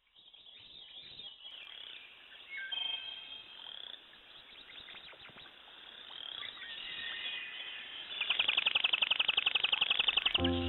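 Outdoor animal calls: birds chirping and calling in short gliding notes, then a fast, even trill of rapid pulses lasting about two seconds near the end. Music with held notes starts just as the trill stops.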